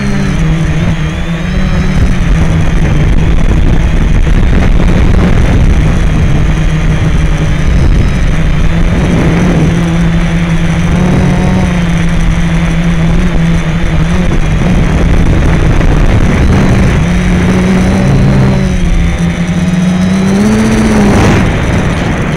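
Quadcopter motors and propellers whirring at a steady pitch, with low rushing wind noise. The pitch shifts slightly as the throttle changes and briefly rises near the end.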